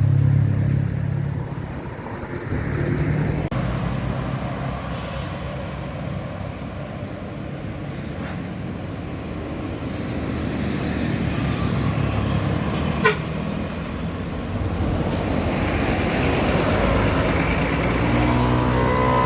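Buses and trucks passing on the road, with engine rumble and tyre noise swelling and fading as each goes by. Right at the end a horn starts to sound.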